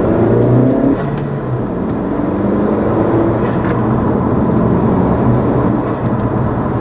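A 2017 Honda Civic's 1.5-litre turbocharged four-cylinder, fitted with a cold air intake, accelerating hard, heard from inside the cabin. The revs climb, drop suddenly at a gear change about a second in, then climb again and level off.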